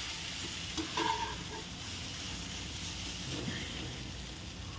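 Grated sweet potato sizzling gently in ghee in a kadhai, with a steel spatula stirring and scraping against the pan a couple of times about a second in.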